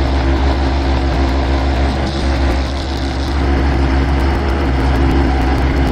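An electric shop machine runs steadily with a deep motor hum and a rough rubbing, grinding noise, as metal is worked against it.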